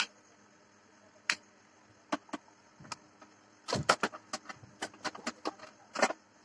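Sharp clicks and knocks of a three-pin power plug being pulled from its socket and its cord handled against a stainless steel weighing-scale pan: a few separate clicks, then a quick cluster of clattering knocks about four seconds in, followed by more scattered clicks.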